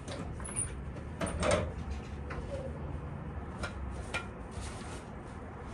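A closet door being opened and things inside the closet being handled: a few light knocks and clatters, the loudest about a second and a half in.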